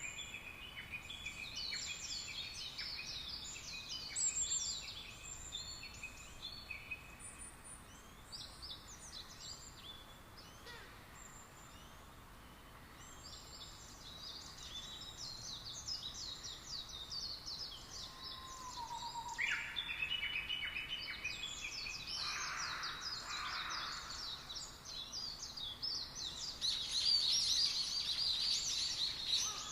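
Many birds calling and chirping at once: a busy chorus of quick high calls that overlap throughout and grow denser and louder near the end.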